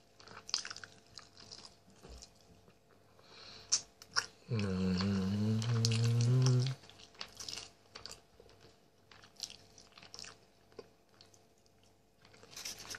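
Close-up mouth sounds of a man eating grilled chicken off the bone with his fingers: soft wet chewing, lip smacks and small clicks. About four and a half seconds in, a low hummed voice holds for about two seconds.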